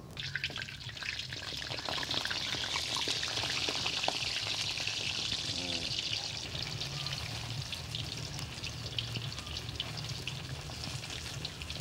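Dồi pork sausage deep-frying in hot oil in a wok: a steady sizzle full of fine crackles. The sizzle starts as the sausage goes into the oil and eases off a little near the end.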